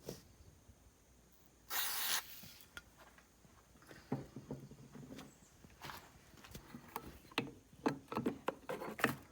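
A short hiss from an aerosol spray can, then scattered clicks and clinks of a wrench and hand tools on the compressor's metal parts as a tight bolt is worked on.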